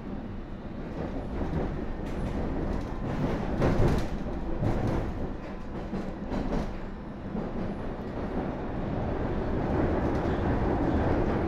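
London Underground S7 stock train (Bombardier Movia) running between stations, heard from inside the car: a steady wheel-and-track rumble with a few sharp clunks about four seconds in, growing a little louder near the end.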